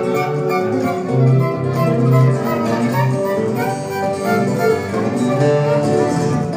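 Live acoustic country band playing an instrumental passage, with a fiddle over strummed acoustic guitars.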